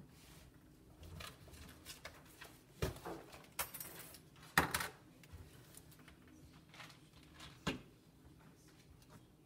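Quiet meeting-room ambience broken by a few short handling sounds, papers rustling and small knocks, the loudest about four and a half seconds in.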